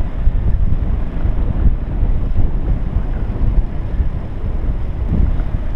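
Wind buffeting the microphone of a camera on a moving bicycle: a steady low rumble that rises and falls in gusts.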